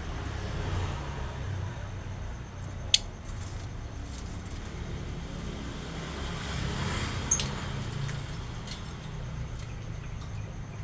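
A steady low motor-vehicle engine rumble, with two sharp clicks about three and seven seconds in.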